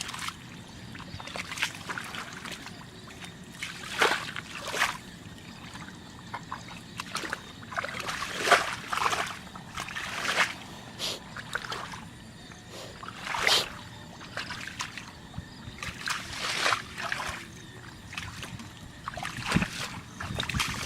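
Water splashing and sloshing in irregular bursts every second or two, with a trickle of water between them.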